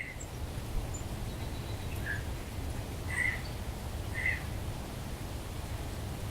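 Outdoor bird calls: three short calls about a second apart in the middle, over a steady low rumble.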